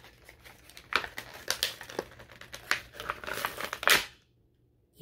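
Wrapping around a wand crinkling and rustling in irregular bursts as the wand is pulled out of its packaging. The loudest rustle comes just before four seconds in, then the sound cuts off abruptly.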